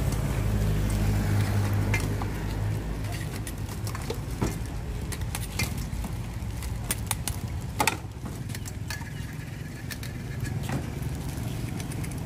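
A motor vehicle engine running close by, fading away over the first few seconds, with scattered clicks and taps of a metal spoon against a steel mixing bowl as spicy salad is spooned into a plastic bag; the sharpest click comes about eight seconds in.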